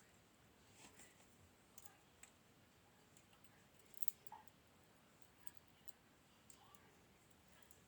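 Faint, scattered light clicks and taps of small metal parts of a Goal pin-tumbler lock being handled as it is taken apart, its pins and springs picked out one by one.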